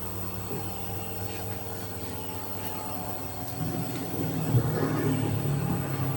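Nebulizer compressor running with a steady hum. About halfway through, a louder, uneven sound joins in.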